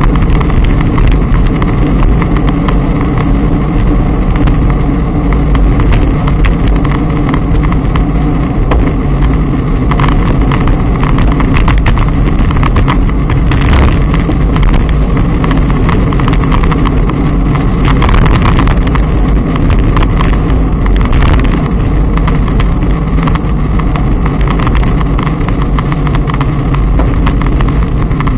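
Steady loud wind rush and road rumble on a moving action camera's microphone, with scattered rattles and knocks from the road.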